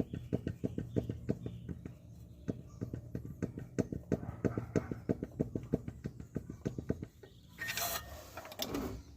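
Car engine idling with a fast, even ticking knock, about five or six a second, over a steady hum. The mechanic diagnoses crankshaft end play in this engine. Near the end there is a brief burst of rustling handling noise.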